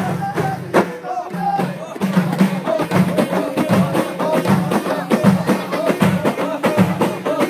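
Ahidous music: a line of bendir frame drums struck together. A few spaced strokes give way, about two seconds in, to a fast, dense beat with voices under it.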